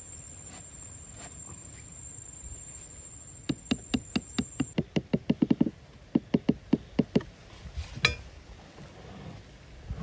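Hatchet head tapping a wire U-staple into the soil at the bottom of a dug hole. It makes quick runs of sharp knocks, about five a second, from about a third of the way in, then one sharper strike late on.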